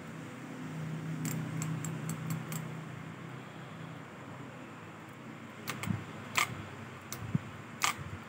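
Shimano Nasci 5000 spinning reel being worked by hand: a steady low whir from the turning handle and gears, with a quick run of light ticks, then several sharp separate clicks from the reel's mechanism.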